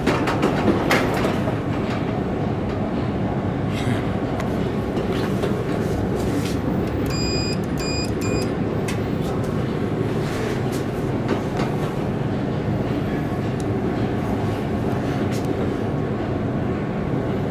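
Steady rumble and hiss of a subway station, with a few sharp clicks near the start. Three short electronic beeps sound about halfway through, just as the inclined elevator's call button is pressed.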